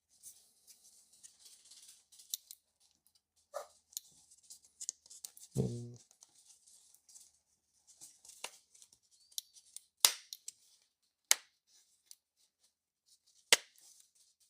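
A push-button switch being wiggled and pressed into a plastic dash switch housing: light scraping and rustling of plastic with a few sharp clicks, the three loudest in the second half, and a dull knock about five and a half seconds in.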